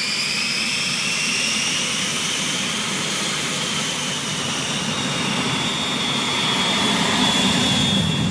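Aero L-39 Albatros's Ivchenko AI-25TL turbofan whining as the jet taxis, the whine rising in pitch at the start and then holding steady. A low exhaust rumble grows louder near the end as the tailpipe turns toward the listener.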